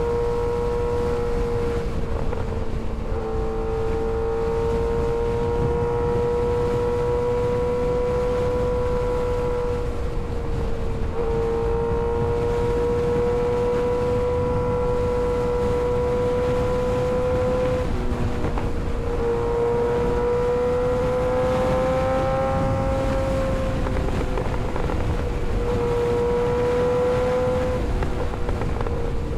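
Kawasaki ZX-6R 636's inline-four engine running at steady riding revs, its pitch drifting gently up and down and briefly breaking several times as the throttle is eased and reapplied, over a heavy low rush of wind.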